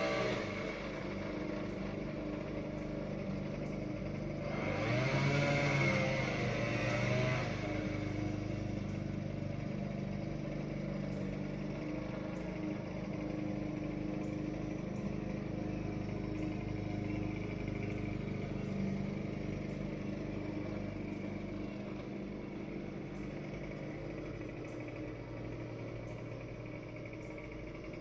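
Small petrol engine running steadily. It swells louder for a few seconds about five seconds in, then settles back to an even run.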